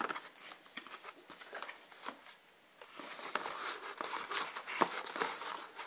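Cardboard box and plastic packaging handled by hand as the box is opened: rustling and crinkling with light taps and clicks, pausing briefly about two and a half seconds in, then denser crinkling.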